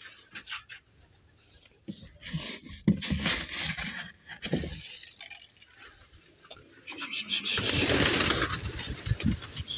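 Rustling and knocks of a phone being handled against clothing. Then, about seven seconds in, a loud burst of wing flapping as a flock of feral pigeons takes off.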